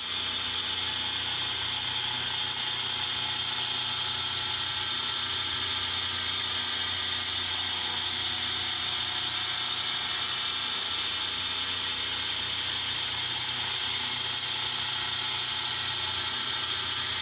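Milling cutter on a CNC mill cutting a round bore in a 2017 aluminium block. The spindle runs steadily and the cut gives a high, even machining noise.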